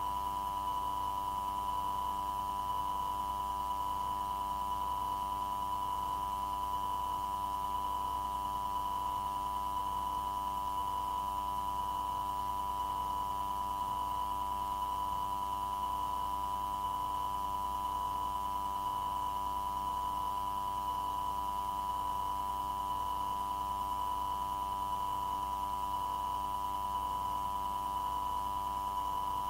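Steady electronic tone near 1 kHz with a fainter higher tone and a low hum under a hiss, on the air traffic control recording line between radio transmissions. It holds unchanged throughout.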